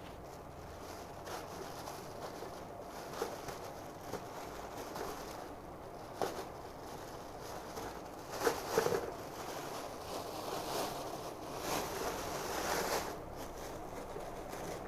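Rustling and handling noise from unpacking a small electric kettle and its parts, with a few light knocks and a louder clatter about halfway through.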